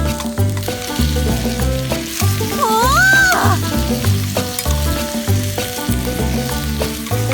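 Food sizzling as it fries in a pan, an even hiss, under background music with a steady pulsing bass beat. A sliding whistle-like note rises and falls about three seconds in.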